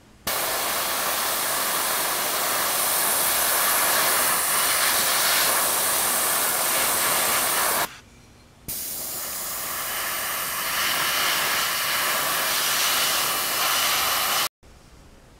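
Airbrush spraying paint: a steady hiss of air for about seven and a half seconds, a short break, then another six seconds of hissing that cuts off suddenly near the end.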